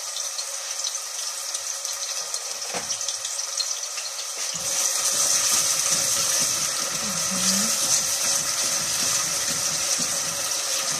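Chopped onion frying in vegetable oil in a stainless steel pot, a steady sizzle that gets louder about four and a half seconds in, while a wooden spatula stirs it.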